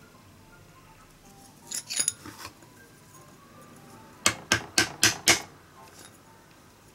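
Five quick, sharp knocks of a wooden mallet striking the back of a blade set on a bamboo strip, about four a second, driving it through the strip to trim the basket frame to width. A short clatter of tools being handled comes about two seconds in.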